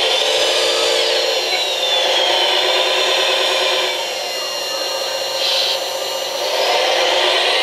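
Wedico radio-controlled Cat 966G scale wheel loader's electric drive and hydraulic pump whining, several tones gliding up and down in pitch as it drives and works the bucket. It eases off a little about four seconds in and picks up again near the end.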